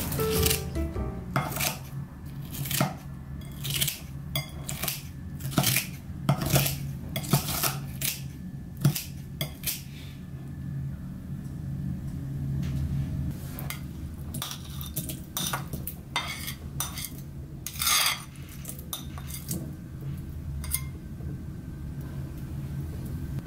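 Metal kitchen scissors snipping kimchi in a ceramic bowl: irregular sharp clicks and clinks of metal blades against the dish, pausing for a few seconds midway and then resuming. A steady low hum runs underneath.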